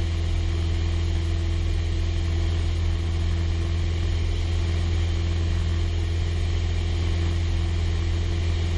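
Cabin drone of a Piper PA-28-161 Warrior II's Lycoming O-320 four-cylinder engine and propeller in flight, heard inside the cockpit. It is a steady, unchanging low hum with a fainter steady higher tone over it.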